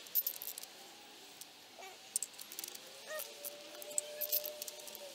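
Scattered light clicks and metallic ticks of a torque wrench and socket being worked on a Toyota 3S-FE cylinder head's bolts during the 32 ft-lb second pass, with a faint drawn-out squeak lasting about two seconds in the second half.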